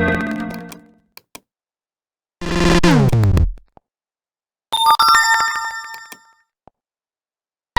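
Android notification tones played one after another: the fading end of one tone, then a synthesized tone sweeping downward in pitch about two and a half seconds in, then a bright, bell-like chime about five seconds in, each lasting about a second, with faint clicks in the gaps.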